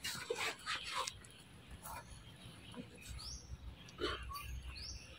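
Faint rustling and scattered clicks of dry leaf litter and gravel as a small monkey moves on the ground, with two short high chirps rising in pitch, about three seconds in and near the end.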